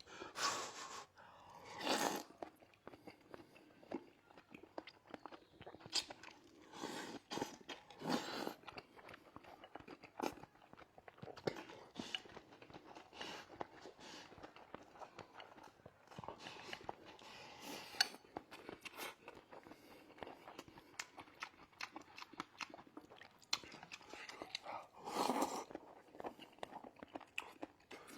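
A person eating close to the microphone: chewing and biting food with wet mouth sounds and irregular small clicks, louder in a few short bursts near the start, around two seconds in, around six to eight seconds in and near the end.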